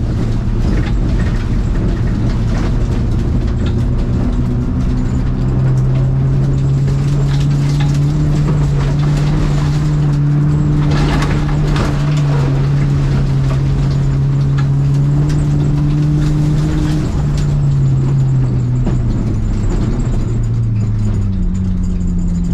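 Renault Clio 1.4's four-cylinder petrol engine heard from inside the cabin, held at a steady pitch for much of the time, then dropping in pitch toward the end. A brief louder rush of noise comes about eleven seconds in.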